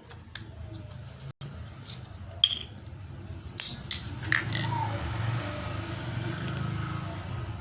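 A plastic mineral water bottle being handled and worked: a few sharp clicks and crinkles, then a steady scraping from about four and a half seconds in.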